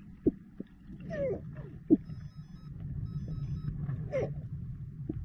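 Underwater recording: a steady low rumble with a few sharp clicks, two loud ones near the start and about two seconds in, and falling squeal-like calls about one and four seconds in. Faint short high beeps repeat between about two and four seconds in.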